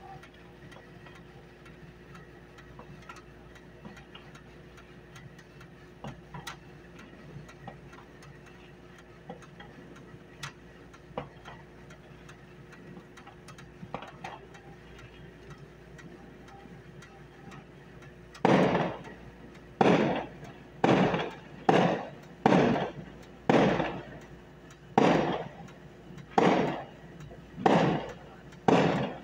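Fireworks: a few faint distant pops and cracks, then from about two-thirds of the way in a rapid string of loud aerial firework bangs, about one a second, each with a short fading tail.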